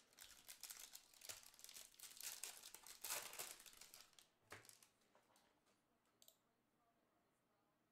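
Trading-card pack wrapper crinkling and tearing as a pack is opened: dense crackling for about four and a half seconds, then fading, with one faint click about six seconds in.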